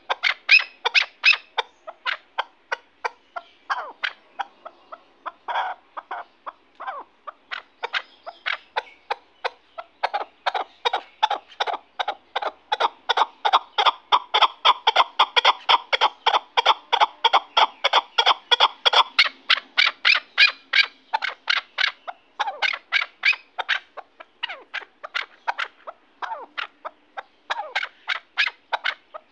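Caged chukar partridge calling: a long run of quick, repeated clucking chuk notes, several a second. From about ten seconds in to about twenty seconds in the notes come faster and fuller.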